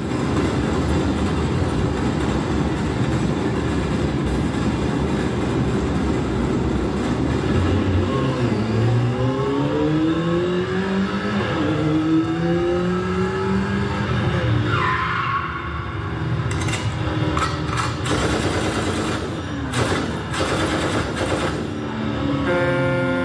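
Car-racing sound effects: engines revving, climbing in pitch, then a tyre screech about fifteen seconds in. A run of sharp knocks follows, and a steady held tone near the end.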